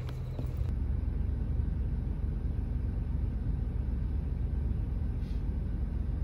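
Steady low rumble inside a car's cabin, the sound of the car running. A few faint clicks come just before it at the very start.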